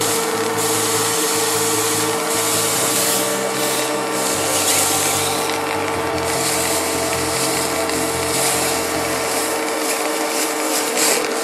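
Shop vacuum running and drawing soapy water and air through a 3D-printed cleaning wand and hose as the wand is worked over the adding machine's keyboard felt. A steady motor whine sits under a hiss of suction that rises and falls.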